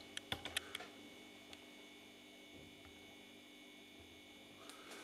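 A quick run of about six light clicks or taps in the first second, then quiet room tone with a faint steady hum.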